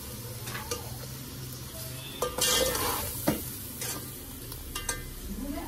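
Slotted metal spoon stirring and scraping against a metal cooking pot of tomatoes, green chillies and masala frying in oil, over a steady sizzle; the loudest scrapes come a little over two seconds in.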